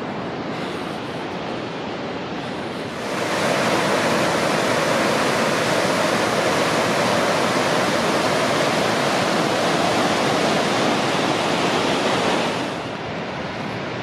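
River whitewater cascades rushing steadily over rocks. The rush grows louder about three seconds in and falls back near the end to a fainter, steady rush.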